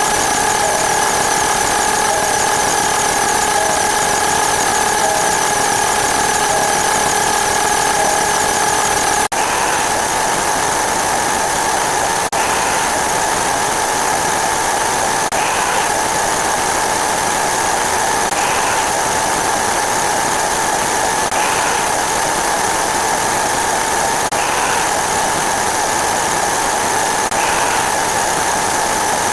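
Dense, continuous electronic drone of sound effects layered over one another in very rapid succession, forming a steady buzz with several held high tones. About nine seconds in it changes abruptly. After that a short blip repeats about every three seconds.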